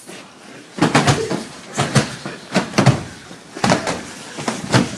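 Repeated heavy thuds and bangs in an uneven series, about two or three a second, starting about a second in.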